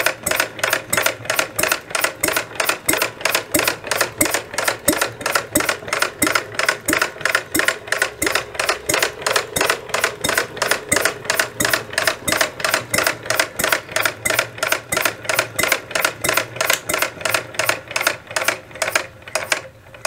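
Model horizontal single-cylinder engine running, its firing and valve gear giving a quick, even run of sharp beats, until it stops near the end.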